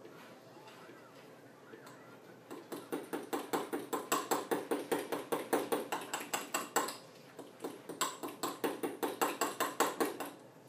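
Fork beating batter in a glass bowl, rapid clinks against the bowl about five times a second. They start a couple of seconds in, pause briefly about two-thirds of the way through, then resume.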